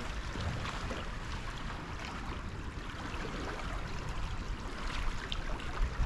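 River water running steadily in a broad, shallow, rippling channel, a continuous rushing hiss, with wind rumbling on the microphone.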